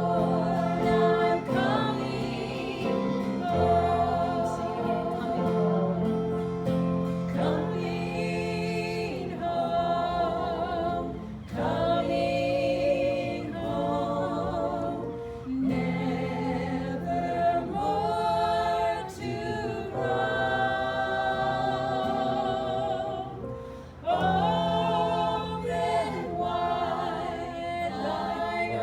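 A group of singers singing a gospel hymn in harmony, in phrases of a few seconds each with brief breaths between them.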